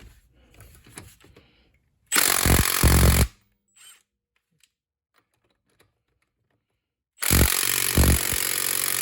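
Impact wrench on its highest mode setting hammering a fastener through an impact socket in two bursts: one of about a second a couple of seconds in, and a longer one starting near the end.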